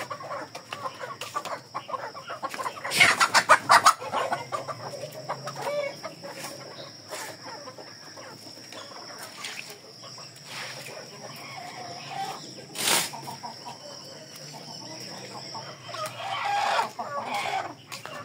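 Chickens clucking on and off, with a loud burst of calls about three seconds in and a short sharp squawk near the middle; a faint steady high tone runs underneath.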